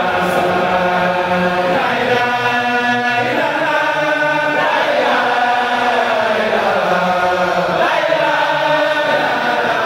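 Congregation of men and boys chanting a religious chant together in unison, in long held notes that slide from one pitch to the next every second or two.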